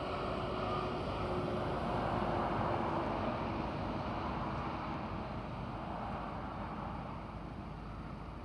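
A 16-port Sentry 10V outdoor warning siren sounding its noon test at a distance. Its tone swells louder over the first couple of seconds and then slowly fades, with some wind on the microphone.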